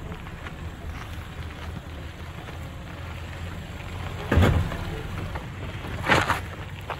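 Suzuki Jimny crawling over a rut at idle in low-range four-wheel drive with no throttle: a low steady engine hum with wind noise on the microphone. Two short, louder bursts of noise come about four and six seconds in.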